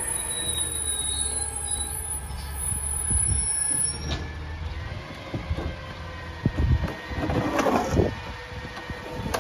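Mack LR McNeilus rear-loader garbage truck working its packer: a squealing whine over the engine's hum for about four seconds, then the whine fades and a run of irregular knocks and clunks follows, loudest around eight seconds in.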